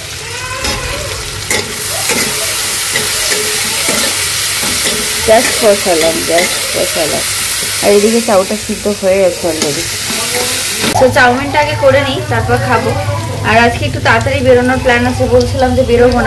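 Diced potatoes and onions sizzling as they fry in a kadai (wok) for chowmein. The sizzling stops suddenly about eleven seconds in, and a pitched, voice-like sound follows.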